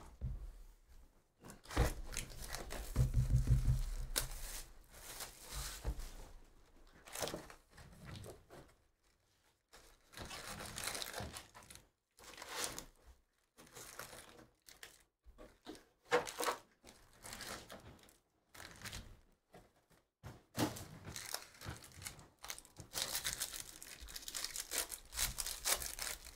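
Trading card packaging being handled: a cardboard hobby box is opened with a low thump, then foil card-pack wrappers rustle and crinkle. Near the end, a foil pack is torn open with a dense crinkling tear.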